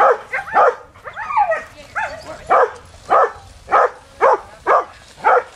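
A dog barking in a steady series, about two barks a second, some of the barks sliding in pitch like yips. This is the excited barking of a dog held back before a run.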